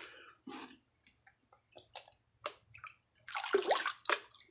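Plastic gold pan being dipped into a tub of muddy water: short sloshes and drips, with a larger splash about three and a half seconds in.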